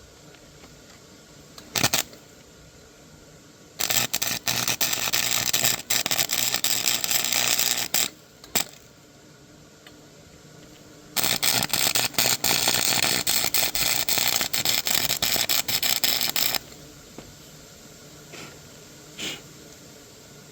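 Hand-tool work on a mini bike: two long stretches, each about four to five seconds, of rapid, dense scraping and clicking, with a sharp single knock about two seconds in.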